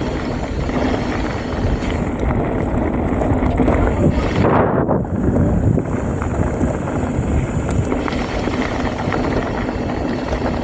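Mountain bike riding down a dirt trail: wind rushing over the microphone, with the tyres rolling and the bike rattling over bumps. There is a louder rush about four to five seconds in.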